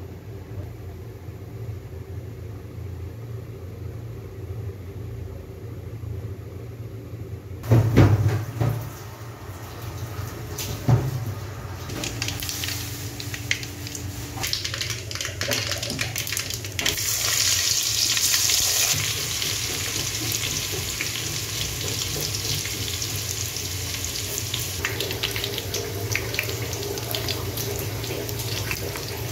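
Hot oil sizzling and crackling in a steel pot as chopped garlic and dried red chillies fry, with a steady low hum before it. The frying starts with a couple of loud knocks a little over a quarter of the way in.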